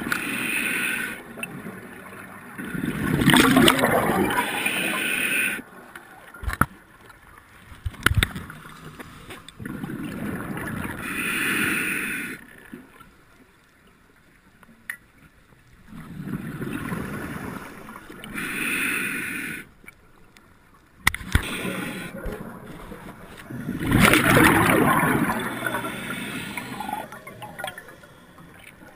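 Scuba breathing heard underwater: air drawn through a regulator and rushing bubbles of exhaled air, in a slow repeating breath cycle. A few sharp knocks fall between the breaths.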